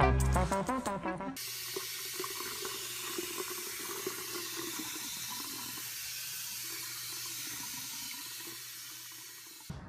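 Music for about the first second and a half, then a pull-out kitchen sink sprayer running a steady stream of water onto a piglet in the sink basin, a constant hiss that stops just before the end.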